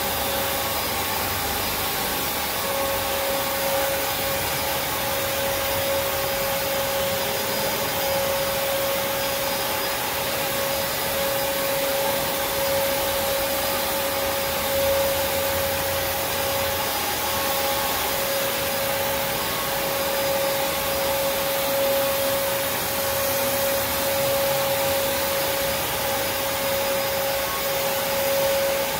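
Prolux X8 Elite backpack vacuum cleaner running steadily: a constant motor whine at one pitch over the rush of air.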